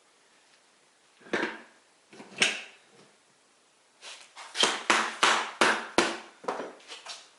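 Knocks and clunks as a 5 hp electric motor is slid and seated onto a machined adapter flange: two separate knocks, then a quick run of about eight knocks, roughly three a second.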